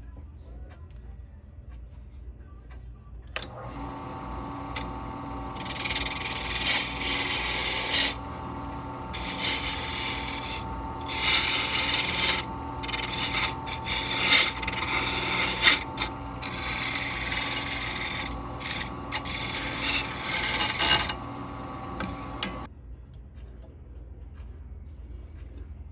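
A small electric power tool's motor starts about three seconds in and runs steadily for about twenty seconds, then stops. Through the run, repeated bursts of abrasive sanding or grinding come and go every second or two as the workpiece is pressed to it.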